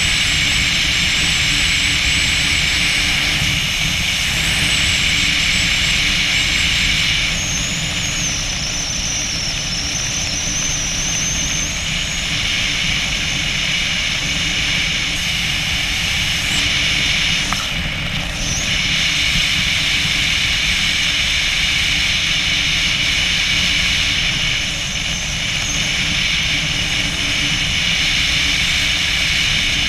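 Steady wind rushing and buffeting over a helmet-mounted camera's microphone during descent under a parachute canopy. A thin wavering whistle comes and goes during the first half.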